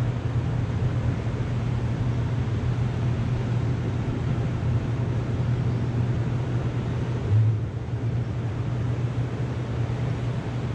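Steady wind and ocean surf noise with a constant low rumble, and a short louder low thump about seven seconds in.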